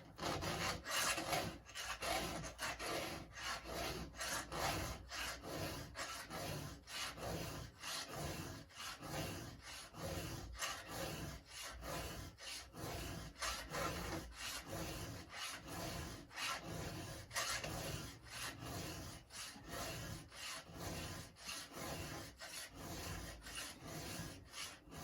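A hand file rasping across the cutters of a square-ground chainsaw chain, in steady, even strokes at about two a second.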